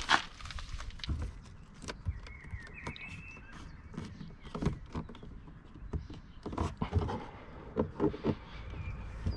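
Irregular knocks and clicks, like footsteps and handling noise, with a faint high chirp about two to three seconds in.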